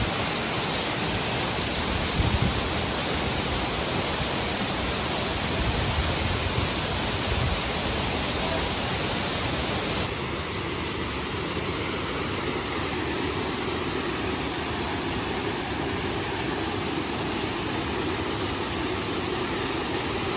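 Steady rushing roar of Mantayupan Falls' cascading water. Its tone changes abruptly about halfway through, and a few low bumps come through in the first several seconds.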